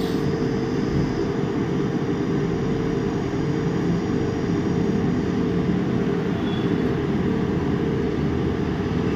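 Steady mechanical drone with a constant low hum running unbroken, room background from something like a fan or air-conditioning unit.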